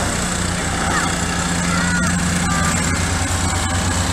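Antique tractor engine idling steadily, with a low even hum.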